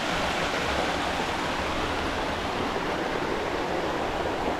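Steady rush of water from a waterfall cascading over rocks, an even hiss with no breaks.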